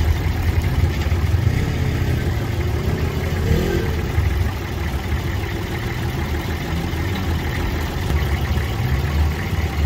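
An off-road recovery vehicle's engine running at low, steady revs with a deep rumble.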